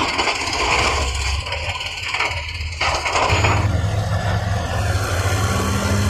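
Heavy construction machinery at work, with a diesel engine running; about three seconds in the sound changes abruptly to a steady low engine drone.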